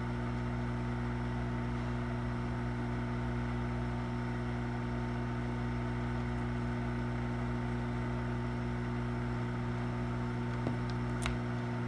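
Hot air rework station blowing steadily at airflow setting 59, heating a USB port to desolder it, with a constant electrical hum. A short click comes near the end.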